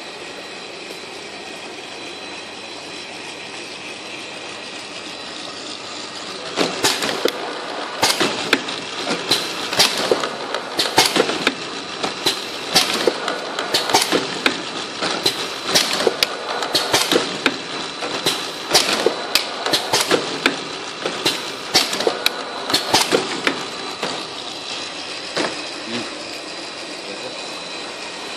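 Automatic servo piston filling machine for 1 L engine oil running: a steady mechanical hum, then from about six seconds in a long run of sharp clacks and knocks, one or two a second, which stops a few seconds before the end.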